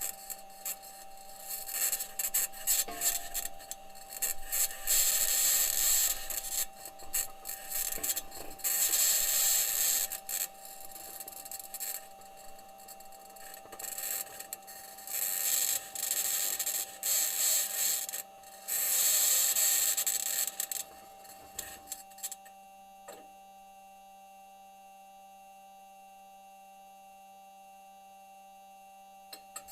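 Perseverance rover's metal wheels grinding and scraping over Martian rock as it drives, heard through the rover's entry-descent-and-landing microphone as harsh scratching in repeated bursts. A steady hum with a higher tone runs underneath, which NASA engineers suspect is electromagnetic interference from the rover's electronics. The scraping stops about two-thirds of the way through, leaving only the hum and a single click.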